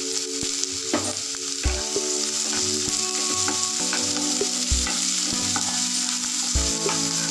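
Chopped onions sizzling in hot oil in a non-stick kadai, stirred with a wooden spatula that knocks dully against the pan a few times.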